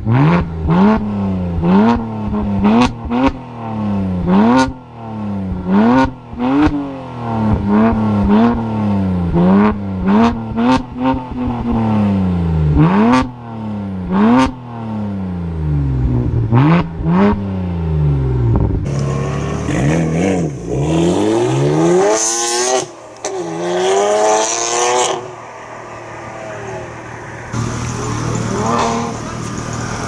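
BMW 1M Coupé's twin-turbo inline-six revved repeatedly while standing still: short blips that rise and fall about once a second, with sharp cracks from the exhaust as the revs drop. In the last third the revs come as longer, slower rises and falls with more hiss.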